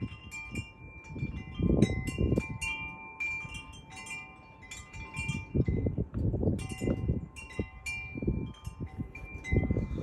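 Wind chimes ringing irregularly, many overlapping struck tones that ring on, while gusts of wind rumble on the microphone in surges.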